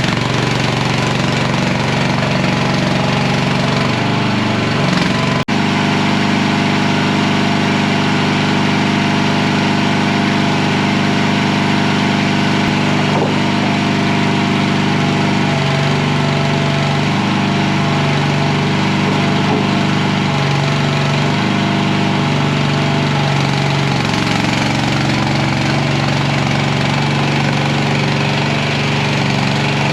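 Small engine of a mini skid steer running steadily, its pitch shifting a little now and then as it works. There is one sharp click about five and a half seconds in.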